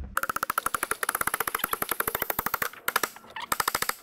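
Power impact tool hammering in a rapid, even metallic rattle of about fifteen to twenty blows a second, working on a plough's headstock pin. It runs for about two and a half seconds, then comes in several short bursts.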